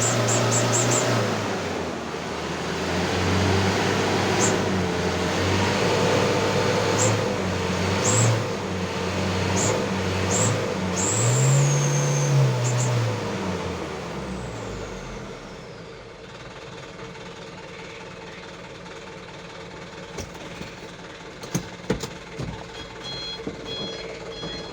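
Mitsubishi Canter truck's diesel engine revved up and down repeatedly while being tuned, with short high whistles over it. About fifteen seconds in, the engine sound falls away, leaving a few scattered clicks and knocks.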